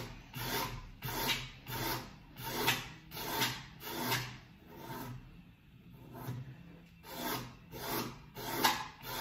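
Coarse 40-grit sandpaper on a hand block rubbed back and forth along the wooden cushion block of a snooker table, about one and a half scraping strokes a second, with a brief pause a little past halfway. The cushion is being sanded back to a marked line to shape it before rubbering.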